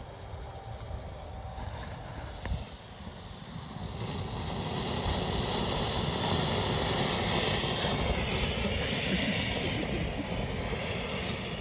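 Silver ground fountain firework spraying sparks with a steady hiss that builds about four seconds in and eases near the end.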